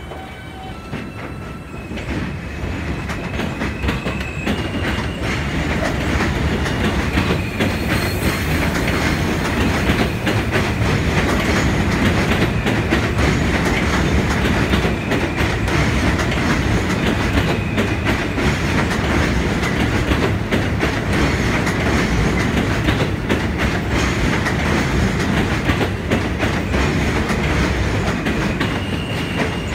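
R160B subway train with Alstom propulsion accelerating away from a station platform. In the first few seconds its motors whine in tones that step up in pitch. The cars then pass close by with a steady loud rumble and wheel clickety-clack.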